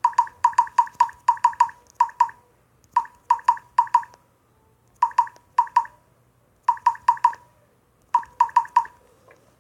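Phone theme keyboard's water-drop key sound: a short, pitched plip at each key tap, played through the phone's speaker in quick runs of several taps with short pauses between.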